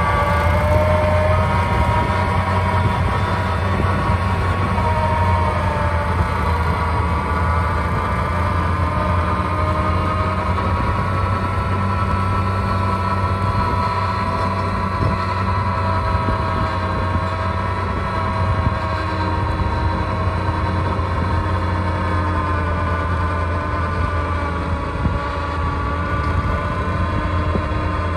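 Tractor engine running steadily under load while driving a 46VX300 rotary spader through very wet, heavy clay soil, a low drone with a steady whine over it. It grows slightly fainter as the rig moves off.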